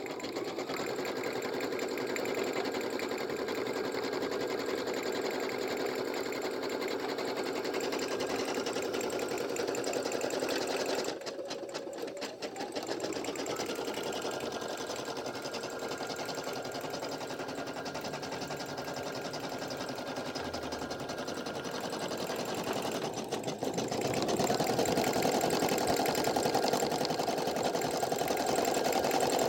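Brother PE800 embroidery machine stitching a patch, its needle and motor running at a steady pace. It dips briefly about eleven seconds in and again about twenty-three seconds in, coming back up to speed with a rising whine, and it is louder near the end.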